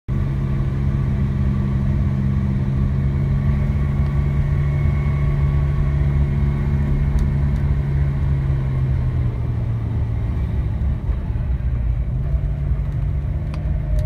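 Car engine running steadily with road and tyre rumble, heard from inside the car as it drives along a narrow paved road; the engine's hum eases about nine seconds in and picks up again near the end.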